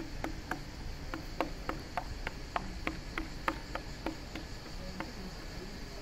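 A run of about fourteen light, evenly spaced taps, about three a second, stopping a little over four seconds in.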